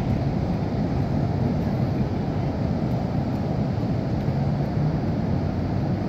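Steady low rumble of breaking ocean surf, with wind buffeting the microphone.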